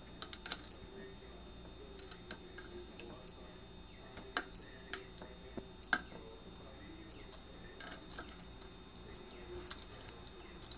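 A parrot bathing: scattered small clicks, taps and drips of water at irregular intervals, a few sharper ones bunched in the middle, over a faint steady hum.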